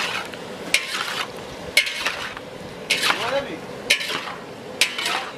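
Metal ladle stirring raw chicken drumsticks in a large aluminium bowl, clanking against the bowl's side with a sharp metallic ring about once a second.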